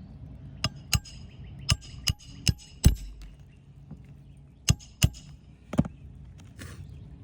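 Hammer driving roofing nails into a roof shingle: about nine sharp, ringing strikes in irregular groups, the first six within the first three seconds and three more near the end.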